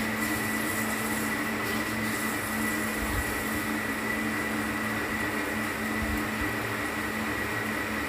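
Steady hum of a running machine, with a constant thin high tone over a low drone and an even hiss, unchanging throughout.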